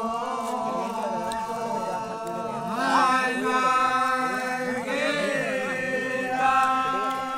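A group of men singing a Holi song together in long held notes, with the pitch sliding up and down about three and five seconds in.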